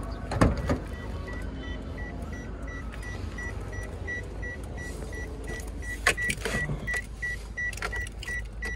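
A car's interior warning chime in a Toyota Calya G beeping rapidly and evenly with the engine off, the kind set off by a key in the ignition or an open door. A sharp knock about half a second in and a few clicks later on come from handling inside the cabin.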